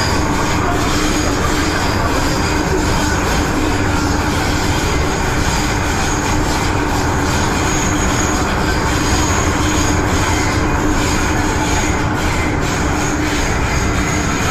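MTR M-train electric multiple unit running through a tunnel, heard from inside the carriage: a loud, steady rumble with a constant hum. A thin high-pitched whine becomes stronger about halfway through.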